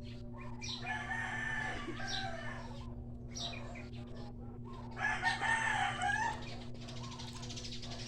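Rooster crowing twice, the second crow about five seconds in and louder, over a steady low hum.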